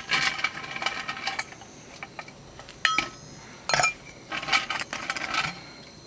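Ice cubes dropped into a tall drinking glass, clattering and clinking against the glass. There is a long run of clinks at first, single clinks around three and four seconds in, and another clattering run after that.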